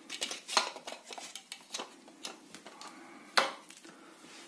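Hard plastic parts of a SVAVO V-370 soap dispenser clicking and knocking together as its pump unit is pressed back into the plastic housing: a run of small clicks, with one louder knock about three and a half seconds in.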